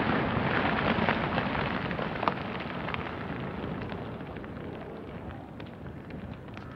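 The rumble of a dynamite rock blast dies away, with scattered clicks and clatter of falling stones and debris, fading steadily over several seconds.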